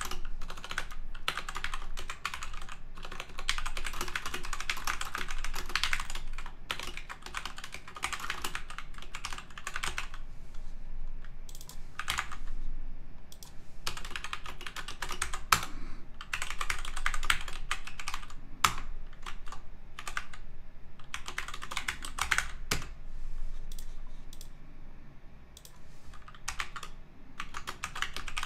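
Typing on a computer keyboard: quick runs of key clicks, with short pauses between them.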